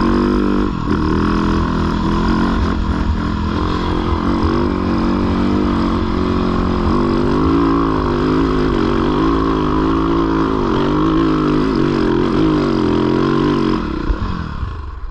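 450 four-stroke dirt bike engine held at high revs under full throttle, the pitch wavering as the rear wheel spins for traction in soft ground on a climb. The revs drop off near the end as the bike stalls out in the ground.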